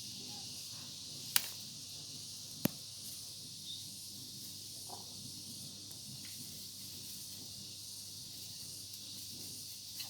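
Steady high-pitched hiss of outdoor background noise, with two sharp clicks about a second and a half in and again a second later.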